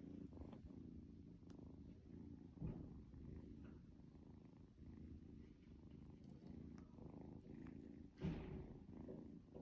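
Kitten purring, a faint steady low rumble, with two short louder bumps, one about a quarter of the way in and one near the end.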